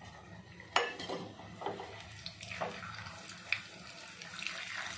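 Mustard seeds and chana dal frying in hot oil in a small tempering pan: a faint sizzle that grows towards the end, with scattered sharp pops as the mustard seeds start to splutter, the loudest a little under a second in.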